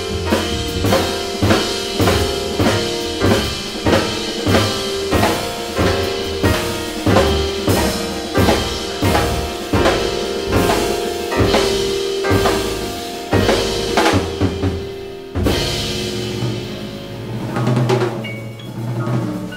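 Live jazz quartet of saxophone, piano, double bass and drum kit playing at high intensity, with loud drum-kit hits roughly every half-second over a held note and walking bass. About fifteen seconds in, the rhythm stops on a crash and a chord rings on and fades.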